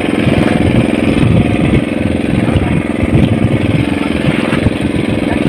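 Loud engine on board a small fishing boat running steadily at an even speed.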